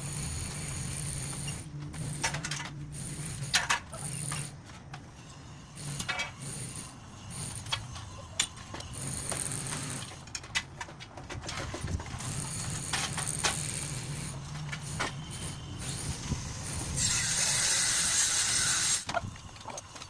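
Irregular knocks, clicks and clatter from manual dismantling work, over a steady low hum. Near the end comes a burst of hissing noise about two seconds long.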